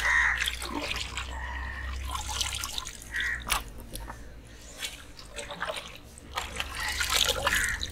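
Wet, freshly washed fish pieces being handled on a steel tray: scattered soft wet slaps, drips and small clicks over a steady low rumble.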